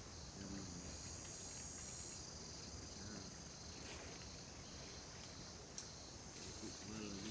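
Faint outdoor ambience: a steady high insect chirring, a little stronger in the first two seconds, with a single brief click about six seconds in.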